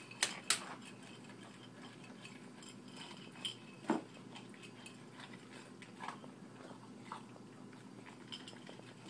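German Shorthaired Pointer eating dry dog food from a metal bowl: scattered crunches and clinks of kibble and muzzle against the bowl, with two sharp clinks just after the start.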